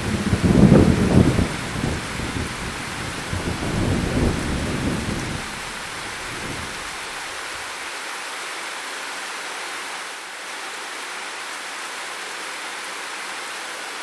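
Steady heavy rain with a clap of thunder at the start, its deep rumble rolling on for about six seconds before fading, leaving the rain alone.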